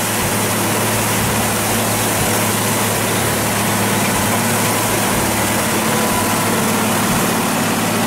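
Concrete mixer truck running with its drum turning, pouring a steady gush of water out of the discharge chute onto the pavement: a loud, even rushing and splashing over a steady low engine hum.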